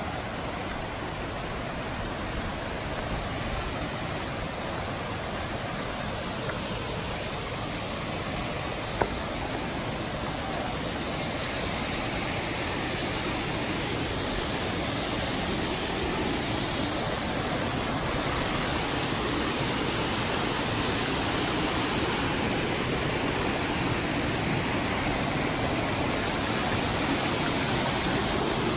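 Steady rushing of a rocky mountain stream and waterfall, growing gradually louder, with one sharp click about nine seconds in.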